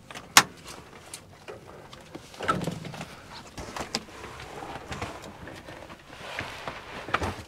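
Cabin handling noises in a Cessna 172 as people climb aboard: a sharp click shortly after the start, then rustling and scraping around the middle and again near the end, with a few more clicks.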